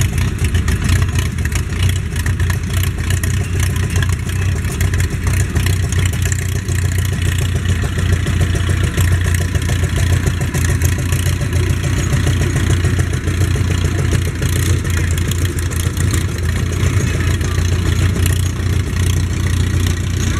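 Small garden tractor engine running at a steady speed as it tows a train of barrel cars.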